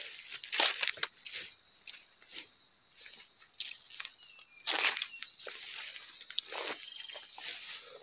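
Steady high-pitched drone of insects, with irregular rustling and crunching from walking through undergrowth. A couple of faint short bird chirps come about halfway through and again near the end.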